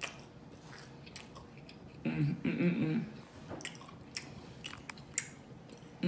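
A person biting and chewing a slice of pizza close to the microphone, with small sharp mouth clicks. About two seconds in, a second of her voice sounds over the chewing.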